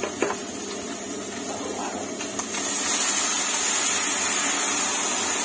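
A click as the kettle is picked up, then, about two and a half seconds in, a loud steady hiss starts as boiling water is poured from the kettle into a hot, oiled frying pan, sizzling and steaming. A steady rushing noise runs underneath throughout.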